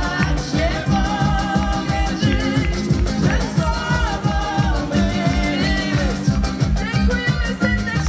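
Live band music: a woman singing over a double bass and a fast, steady beat.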